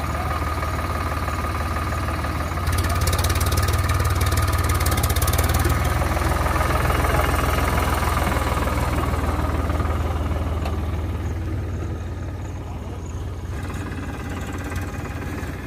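Eicher tractor's diesel engine running with an even beat as the tractor drives past close by. It gets louder about three seconds in and fades after about ten seconds as the tractor moves away.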